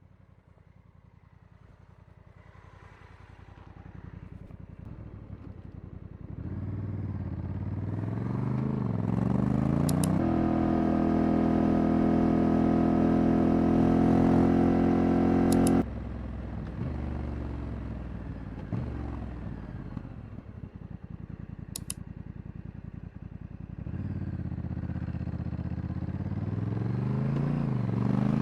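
Honda Africa Twin Adventure Sports' 1084 cc parallel-twin engine running, its sound growing from faint to loud and holding a steady, even note for several seconds. The level then drops abruptly about halfway through and builds up again near the end. A few faint, sharp clicks are also heard.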